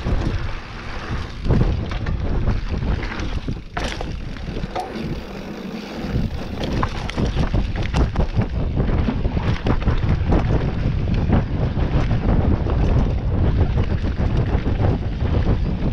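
Wind buffeting the microphone of a camera on a mountain bike riding a dirt singletrack, with a dense run of knocks and rattles from the bike and its tyres over rough ground. The wind rumble eases briefly about five seconds in.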